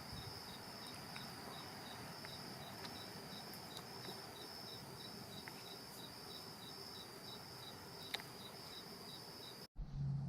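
Faint insect chorus: a steady high buzz with a second high chirp pulsing about twice a second. Near the end it cuts off abruptly and a low steady hum takes over.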